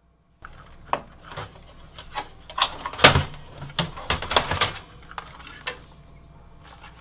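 Clicks and knocks of a desktop computer's power supply being unscrewed and handled in its metal case. There is a string of sharp knocks, the loudest about three seconds in, easing off after about five seconds.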